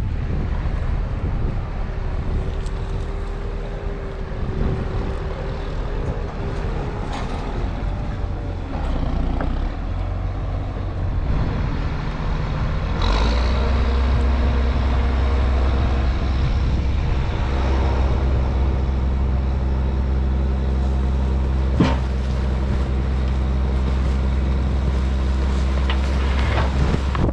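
Small diesel engine of a mini excavator running steadily under work, stepping up and growing louder about halfway through, with a couple of sharp knocks.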